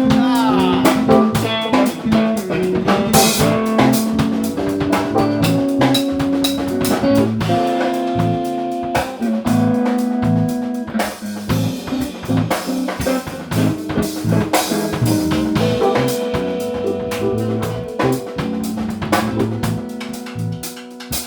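Instrumental band jam in A minor: guitar over a drum kit with steady beats, getting quieter over the last few seconds.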